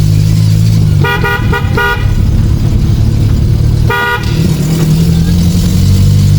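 A car engine running steadily while driving. A car horn gives a quick run of short toots about a second in and one more toot about four seconds in.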